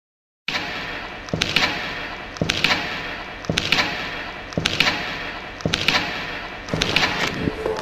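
Regular thuds, about one a second, each with a quick cluster of sharp clicks, over a steady hiss-like noise. The sound starts abruptly about half a second in.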